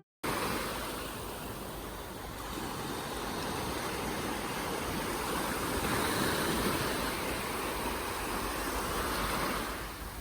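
Sea surf washing onto a beach: a steady rush of waves that swells and eases, with some wind.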